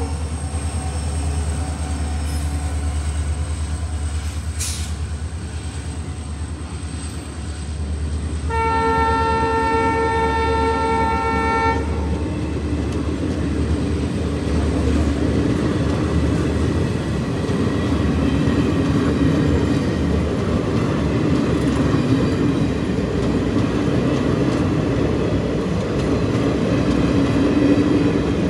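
Indian Railways WDP4 diesel locomotive passing with a deep engine hum. About nine seconds in, it sounds one multi-tone horn blast lasting about three seconds. After that, the passenger coaches roll past with steady, louder wheel-on-rail noise.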